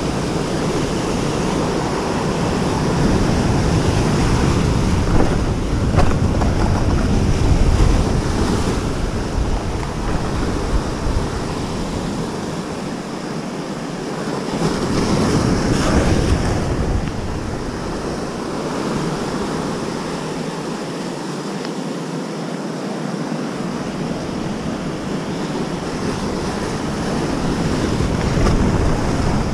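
Surf washing and breaking against a rocky shore, with wind buffeting the microphone in gusts that ease off twice for a few seconds.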